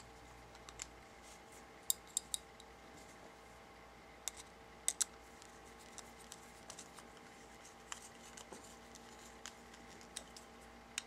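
Screwdriver driving small screws into a steel tube and aluminium valve mock-up: faint, irregular light clicks and ticks, some in quick pairs, as the tip and screws shift and turn.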